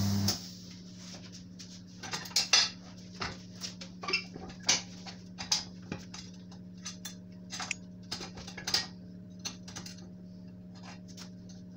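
Irregular metallic clinks and knocks as a van tyre is handled and fitted against the metal parts of a tyre-changing machine, over a faint steady low hum.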